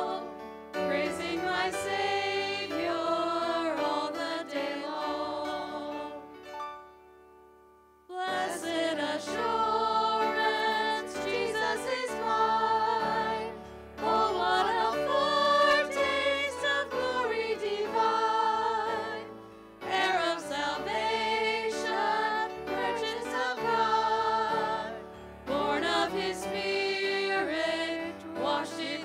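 Worship team of several voices singing a congregational worship song into microphones, in phrases with short breaths between. The singing stops for about two seconds roughly six seconds in, then starts again.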